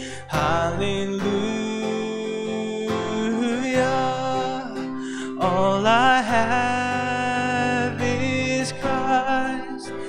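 Live worship song: a man singing held notes over a strummed acoustic guitar.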